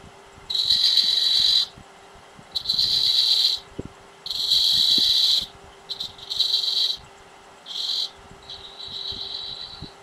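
Turning tool cutting detail lines into the end-grain face of a spinning walnut lid on a wood lathe: about six high-pitched, scratchy cuts of about a second each, with a faint steady hum from the lathe beneath.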